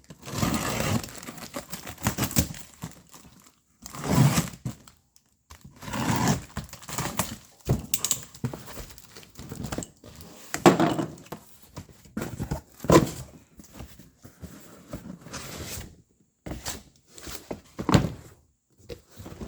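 A cardboard shipping box being opened and handled: tape and cardboard tearing, packing material crinkling, and irregular thunks and knocks as the box and its contents are moved around.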